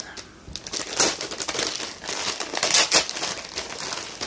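Packaging crinkling and rustling in irregular flurries as hands rummage through a box of wrapped gifts and handle the items. It is loudest about a second in and again near three seconds.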